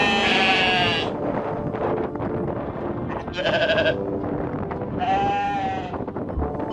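Sheep bleating three times: a long call at the start, a shorter quavering one about three seconds in, and another about five seconds in.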